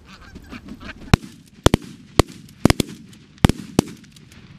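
A volley of shotgun blasts from several waterfowl hunters firing at ducks over the decoys: about nine sharp shots in under three seconds, starting about a second in, some overlapping almost at once.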